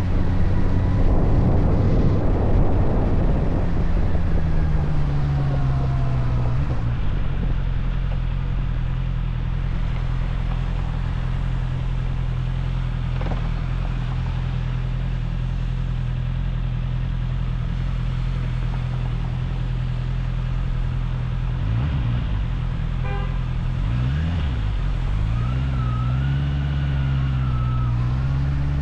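Motorcycle engine heard from on the bike, with wind noise in the first few seconds as it slows. It then runs at a steady note for a long stretch, and the revs rise and fall again near the end.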